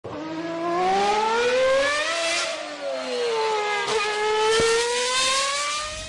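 Car engine revving hard: its pitch climbs, falls away, then climbs again after a sharp click or two about four seconds in.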